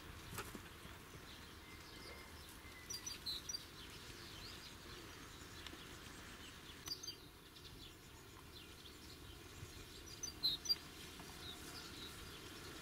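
Faint steady outdoor background noise with a small bird's short, high chirps in three brief bouts, about three, seven and ten seconds in, the last the loudest.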